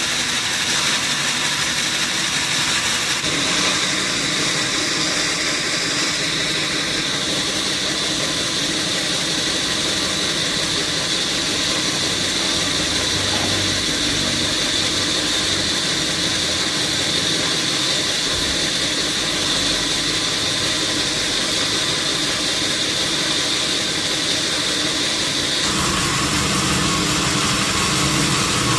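Sawmill machinery running steadily, a continuous mechanical hum with a high whine over it. The tone shifts about three seconds in and again near the end.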